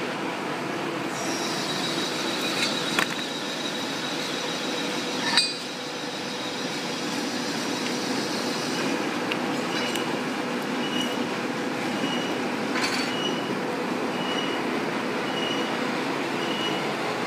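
Steady machinery noise, with a few sharp metal clicks and clinks as steel parts are handled and fitted on the input shaft of a gate valve. The loudest click comes about five seconds in. From about halfway, a faint high beep repeats about every two-thirds of a second.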